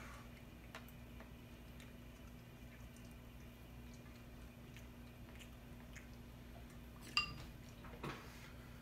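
A metal fork clinking on a ceramic bowl: faint scattered ticks, then one sharper ringing clink about seven seconds in, over a steady low hum.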